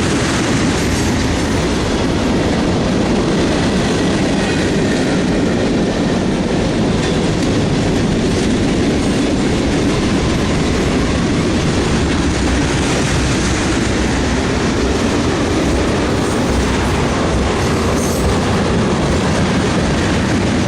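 Freight train rolling past steadily, a continuous rumble and rattle of its cars on the rails.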